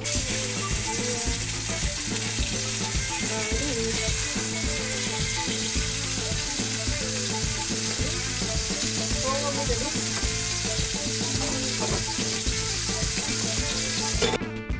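Marinated turkey breast slices frying in hot olive oil in a pan, a steady loud sizzle that stops near the end.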